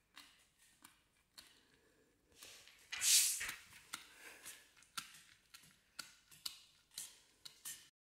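A dog gnawing a long dried chew stick, with irregular crunching and clicking of its teeth on the chew. There is a louder, hissy burst about three seconds in.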